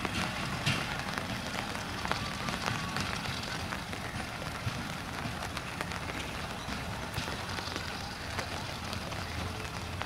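Rain pattering steadily, with many small scattered drop ticks, over the low rumble of a broad-gauge passenger train running away down the track, fading slightly.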